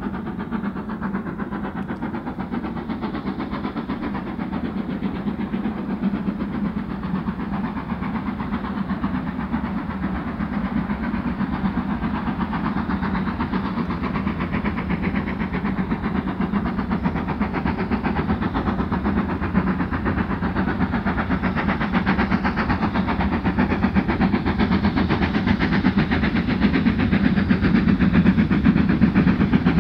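A steam train running: a steady, dense mechanical noise that grows gradually louder.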